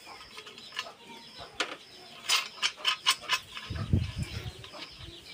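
Short metallic clicks and taps of a steel chaff-cutter blade being handled and seated over its bolts and nuts on the cutter's flywheel, with a dull knock about four seconds in.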